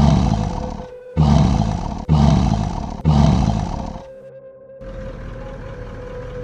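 Lion roaring at close range: four loud, rough roars of about a second each in quick succession, each starting suddenly and fading, over a low steady music drone.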